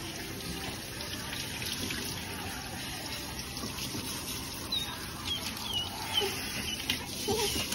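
Water spraying steadily from a handheld hose sprayer onto a wet dog's coat and splashing on the tiled tub floor. A few short high squeaks come in over the last few seconds.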